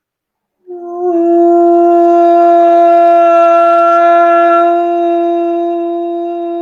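One long held note, steady in pitch with a breathy edge, starting just under a second in and slowly fading.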